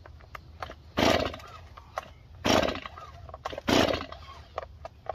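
A new STIHL MS 251 two-stroke chainsaw being pull-started: three pulls on the recoil starter cord about a second and a half apart, each a short burst as the engine turns over. It does not catch on any of them. These are cold first-start attempts with the start lever moved up one click.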